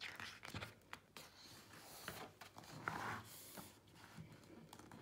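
Faint paper rustle of a large picture-book page being turned and smoothed flat, with a few soft taps and a brief swish about two to three and a half seconds in.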